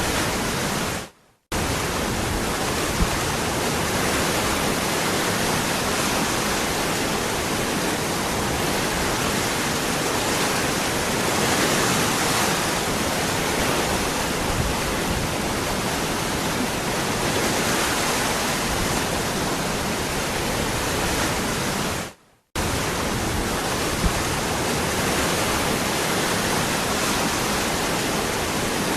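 Waterfall: a steady, loud rush of falling water, cutting out abruptly to silence for a split second twice, about a second in and again some twenty seconds later.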